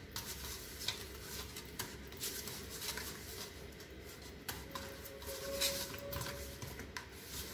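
Hands rubbing a raw, spice-coated chicken breast around a stainless steel plate: soft wet rubbing with scattered light clicks and taps on the metal plate.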